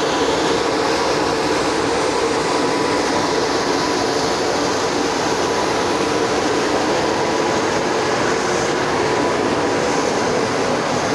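Coal pulverizer machinery running steadily: a loud, even mechanical noise with a faint steady whine.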